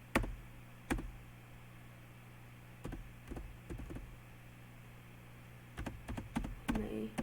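Computer keyboard and mouse clicks, a few scattered ones at first and then a quicker run of clicks near the end, over a low steady hum.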